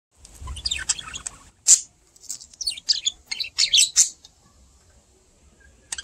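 Budgerigars chirping and chattering: a quick run of short, high chirps for about four seconds, then falling quiet.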